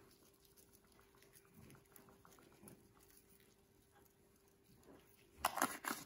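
Faint ticking patter of a spice jar being shaken over a baking pan of diced pumpkin, sprinkling cinnamon. A few louder knocks come near the end.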